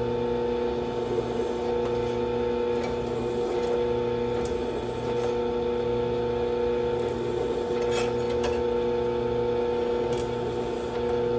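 A drill running steadily with a chamfering bit cutting the edges of drilled holes in a steel knife tang, with a few light scraping ticks about eight seconds in.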